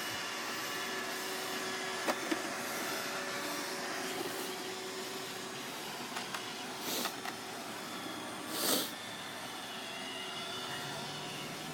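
iRobot Roomba 580 robot vacuum running, a steady motor and brush hum with a thin whine, broken by two sharp clicks about two seconds in and two brief louder rushes of noise later on.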